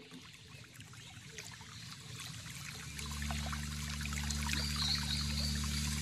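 Meditation nature-sound track fading in: trickling, flowing stream water, with a soft, low sustained music drone joining about halfway through and slowly swelling, played back over a video call.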